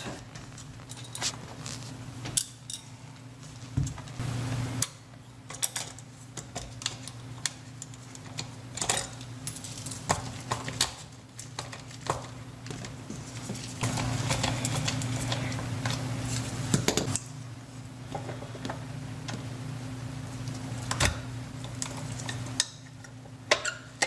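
Scattered clicks and clinks of a screwdriver and small metal and plastic parts on a dishwasher drain pump and motor assembly, as the drain solenoid is taken off one pump and fitted to the other. A steady low hum runs underneath.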